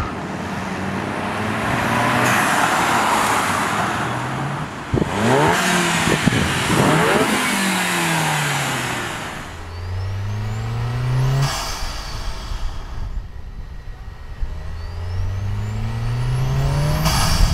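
Volkswagen MK7 Golf's turbocharged 1.8 TSI four-cylinder engine, breathing through a Racingline R600 intake, accelerating: the engine pitch climbs, falls away and climbs again, with a high rising turbo whistle and a sharp turbo whoosh as the throttle lifts, about eleven seconds in and again near the end. Before that, a steady rushing noise carries an engine note that wavers up and down.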